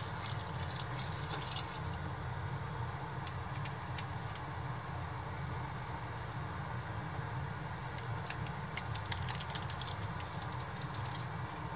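Water pouring from a glass jug into a pot of vegetables, trailing off about two seconds in. Then come scattered faint ticks as granulated dashi is sprinkled in by hand, over a steady low hum.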